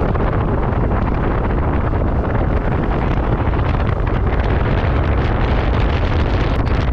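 Steady wind rushing over the microphone of a helmet or handlebar camera on a moving Yamaha scooter, with the scooter's engine and road noise beneath it.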